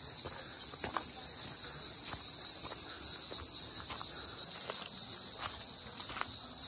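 Steady high-pitched insect chorus, with faint footsteps on a trail every half second to a second.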